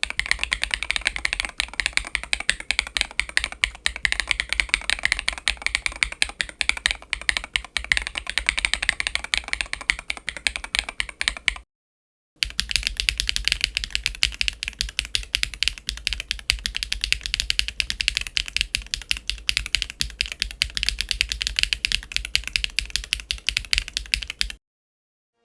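Keygeek B1 mechanical keyboard switches being typed on in quick, continuous keystrokes with a sharp, clacky sound. There are two passages of typing, with a brief silent break about halfway.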